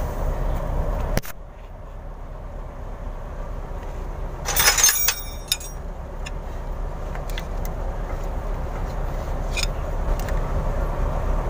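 A short metallic clatter of a steel hand tool clinking against metal, ringing briefly, about halfway through. A few light taps follow, over a steady low rumble of vehicle noise.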